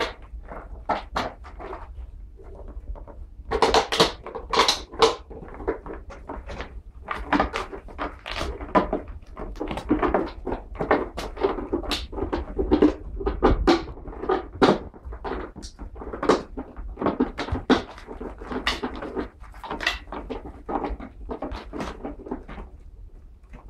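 Irregular clattering and knocking: many sharp knocks in quick, uneven succession, busiest from a few seconds in until a short lull near the end.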